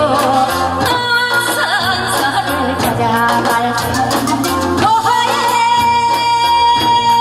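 A woman singing a Korean folk song into a microphone over amplified accompaniment with a steady beat and drum strikes; about five seconds in she holds one long note with vibrato.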